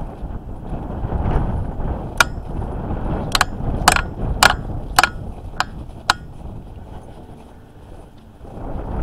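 Footsteps on packed snow with wind on the microphone, and from about two seconds in a run of sharp metallic clicks, about two a second for four seconds: trekking pole tips striking icy snow.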